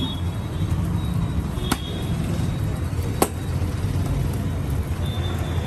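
Steady low rumble of road traffic, with two sharp clicks about a second and a half apart.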